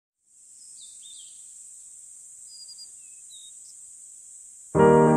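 Nature ambience: a steady, high insect trill with a few short bird chirps over it. About four and a half seconds in, much louder piano-led music comes in.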